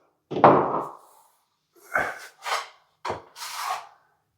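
Steel plastering trowel scraping wet, setting plaster in about five short strokes, the first and loudest about half a second in.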